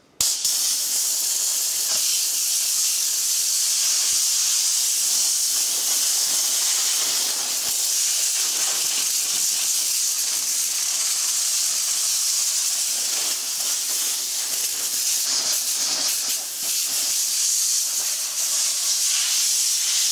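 Compressed-air blow gun on an air hose, hissing in one long continuous blast as it blows off a timing belt cover. It starts abruptly at the outset and holds steady, with a few brief dips.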